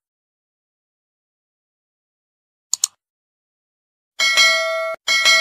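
Sound effect of a computer mouse click, two quick clicks, near the middle. About four seconds in comes a bright bell ding; it cuts off, is struck again at once and rings on.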